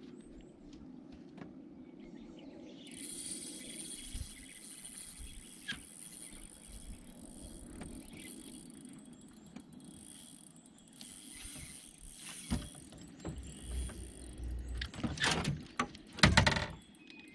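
Insects buzzing in a steady high hiss from about three seconds in, with scattered clicks and low thumps and a few loud scraping knocks near the end.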